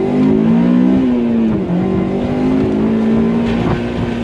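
Honda S2000's F22C 2.2-litre inline-four revving hard under load: the pitch climbs, dips briefly about a second and a half in, then holds high and steady. A couple of sharp cracks come through near the end.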